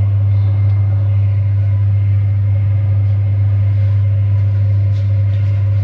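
A loud, steady low hum with a fainter hiss over it, unchanging throughout, like machinery running.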